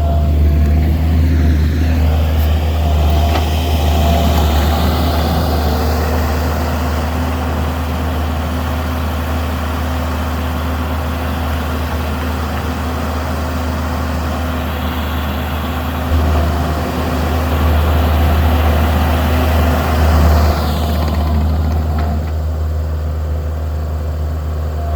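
Diesel engine of a Takeuchi tracked skid steer running steadily under work, with a deep, constant rumble that swells briefly twice in the second half.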